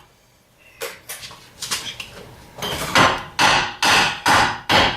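Hammer striking steel front-suspension parts to knock them loose after a bolt is removed. First comes a few lighter taps, then five heavy ringing blows about half a second apart.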